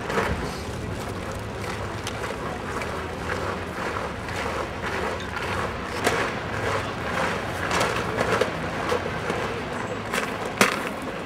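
Outdoor crowd ambience: a steady low rumble and hubbub, with scattered sharp clicks and footsteps as the guards band marches and settles into position. The band is not playing.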